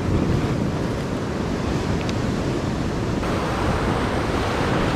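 Ocean swell washing over a rocky shore, a steady rush of surf, with wind buffeting the microphone.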